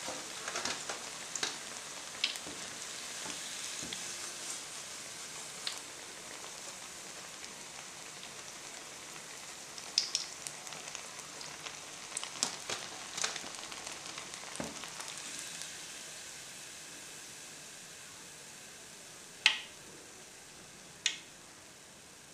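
Hot oil sizzling steadily as battered cauliflower pieces deep-fry, fading in the later part. Scattered sharp metallic clicks, the loudest two near the end, from the wire strainer and fried pieces on the steel plate.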